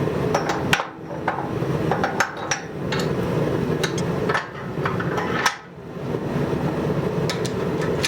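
Irregular sharp clanks and knocks of steel being handled and struck while working a truck leaf spring, over a steady background rush.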